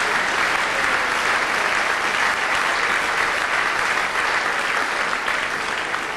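Audience applauding steadily in a hall, tapering off at the end.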